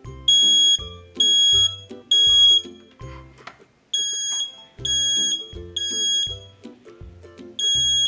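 Kidde 0915E battery-powered smoke detector sounding its alarm after being set off by smoke: loud, high-pitched beeps in groups of three with a short pause between groups, repeating.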